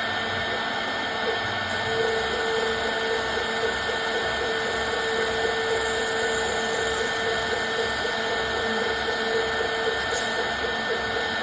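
Custom-built CNC machine running: a steady whine with a low pulsing underneath.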